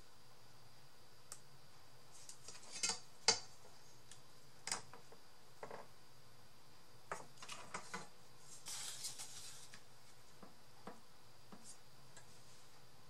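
Hand craft work: craft tools and pieces being handled, with scattered light clicks and taps and a brief scratchy stretch about two thirds of the way through, as of cutting.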